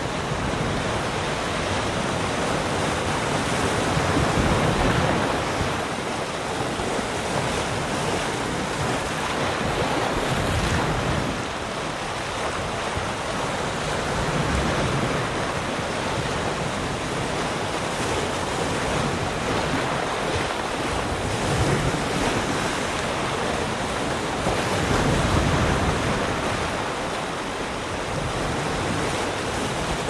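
Ocean surf breaking and washing in over a shore of large rounded stones: a continuous rush that swells louder every several seconds as each wave breaks.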